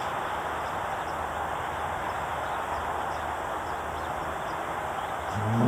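Milk cow giving a low, rumbling growl that begins near the end and grows louder, a warning sign that she is upset by the dog in front of her. Before it there is only steady background hiss.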